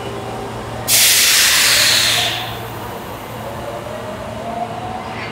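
Osaka Metro 22 series subway train: a sudden loud burst of compressed air hissing about a second in, lasting a little over a second before dying away, then a faint rising whine as the train begins to move.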